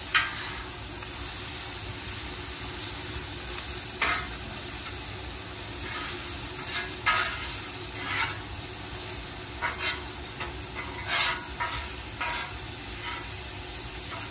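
Thin-sliced ribeye steak with peppers and onions sizzling on a Camp Chef gas griddle. Metal tongs and utensils scrape and clack against the griddle every second or two, loudest about 4, 7 and 11 seconds in.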